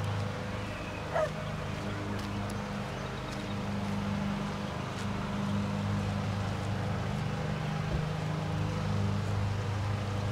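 Diesel-electric freight locomotive leading an approaching train, its engine running with a steady low drone. A brief high squeak rises sharply about a second in.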